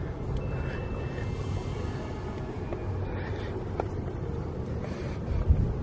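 Wind rumbling on the microphone outdoors during a climb up a rusty steel staircase, with a few faint knocks from the metal steps and a low thump near the end.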